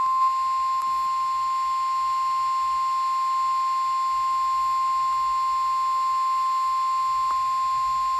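NOAA Weather Radio 1050 Hz warning alarm tone: a single steady, unbroken high-pitched tone, received over a weather radio. It signals that a severe thunderstorm warning is being broadcast.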